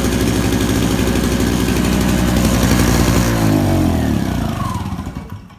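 Small 1 kW two-stroke petrol generator running steadily, then shut off about three seconds in: its note falls as the engine spins down and stops.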